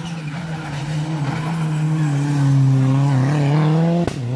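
Rally car engine at full throttle, getting louder as the car comes up and passes close by. Near the end there is a single sharp bang, and the engine note drops.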